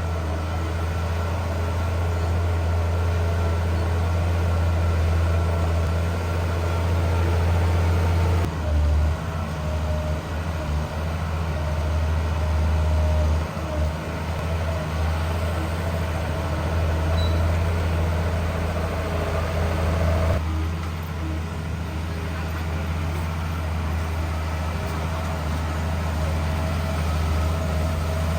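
Heavy diesel engine of earthmoving machinery running steadily with a deep hum. The sound shifts abruptly twice, about a third of the way in and again about two-thirds of the way in.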